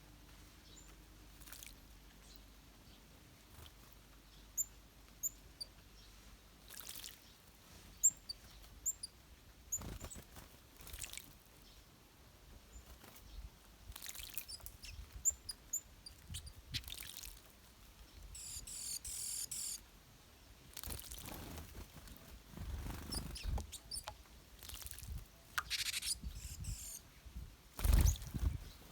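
Small wild birds splashing in a shallow bird bath, in short bursts of flapping and splashing that grow busier in the second half, the loudest near the end. Short high chirps and calls come in between.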